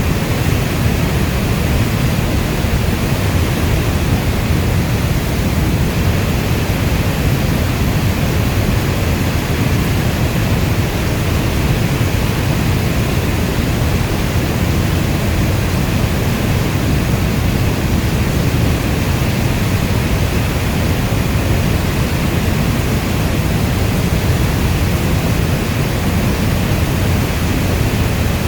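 Steady rainstorm: an even, unbroken wash of rain noise, heaviest in the low end, with no separate drops or thunder standing out.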